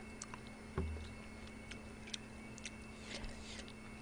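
Faint, scattered light clicks and clinks of a metal ladle against a ceramic bowl and a plastic soup container as seafood soup is served out, with a soft knock just under a second in, over a low steady hum.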